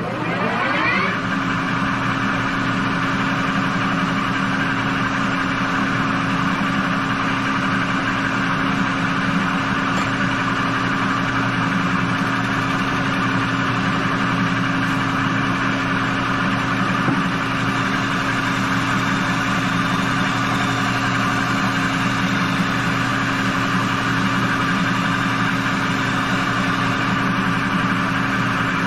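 Manual metal lathe spinning up, its pitch rising for about a second, then running steadily with a constant hum while it turns a transmission bell housing to take the last few thousandths off its face.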